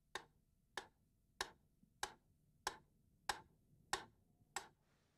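Sharp, evenly spaced ticks, about eight of them at a little under two a second, like a clock's tick.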